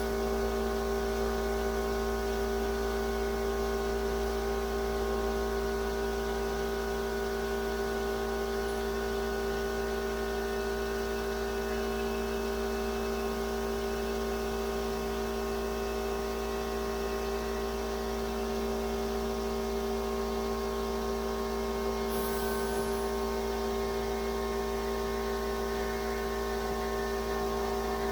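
Steady electric motor hum, several even tones held constant without change.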